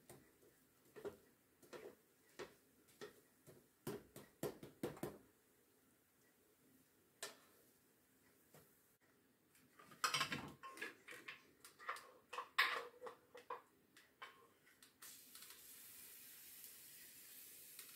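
Light clicks, taps and scrapes of a spatula and utensils on an electric crêpe maker's non-stick plate as a crêpe is folded and lifted off, in two spells with a busier cluster partway through. A faint steady hiss comes in near the end.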